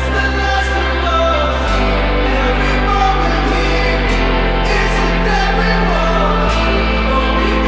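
Background pop-rock song with sung vocals, a steady beat and held bass notes that change every couple of seconds.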